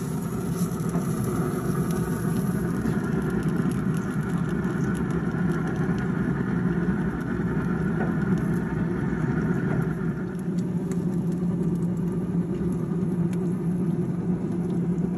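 Steady machine hum with a strong low drone. A higher whine above it fades out about ten seconds in, and a few faint light clicks come through.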